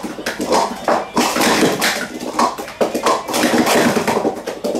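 Hard plastic sport-stacking cups clattering in a rapid run of sharp clicks as they are stacked up and brought down on a stack mat, part of a sport-stacking cycle.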